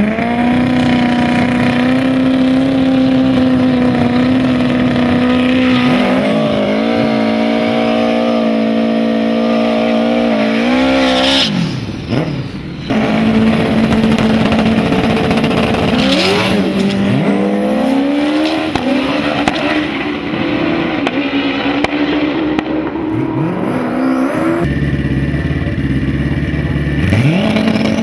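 Turbocharged Suzuki Hayabusa drag bike engines running at high, steady revs and revving up and down. The pitch sweeps sharply down and back up a few times.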